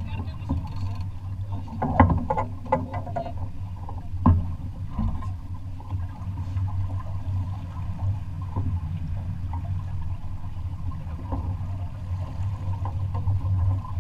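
A sailing yacht under way: steady wind rumble on the microphone and water rushing along the hull, with a couple of sharp knocks about two and four seconds in.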